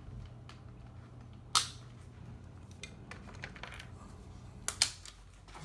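Sharp clicks and knocks of hardware being handled. The loudest comes about one and a half seconds in and two more follow close together near the end, with a few lighter ticks between them, over a low steady hum.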